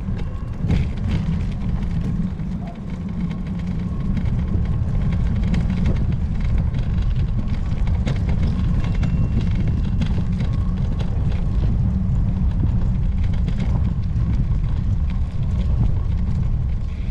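Wind buffeting the microphone of a moving bike ride, a steady deep rumble with a few faint rattles and clicks.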